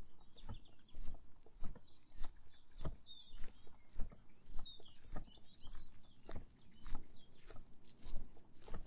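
Walking footsteps on a path, a steady pace of about two steps a second, with small birds chirping now and then.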